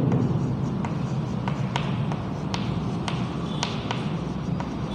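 Chalk writing on a chalkboard: a string of sharp, irregular taps and short strokes as the chalk strikes and moves across the board, over a low steady room hum.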